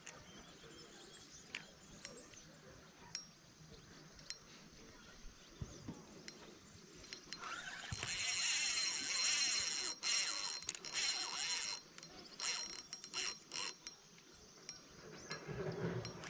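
Spinning reel cranked to retrieve a lure. A few scattered clicks come first. From about eight seconds in there is a loud whirring with a steady high whine for about four seconds, then shorter bursts of cranking.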